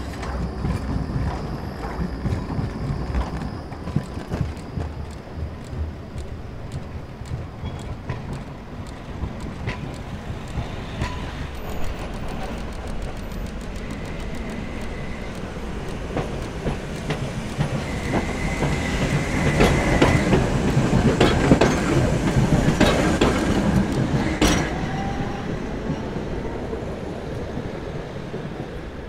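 City tram running on rails, a steady rumble with clattering over rail joints. It grows loudest about two-thirds of the way in, with a brief high wheel squeal and a run of sharp clacks, then eases off.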